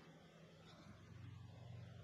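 Near silence: faint, steady low hum of room tone.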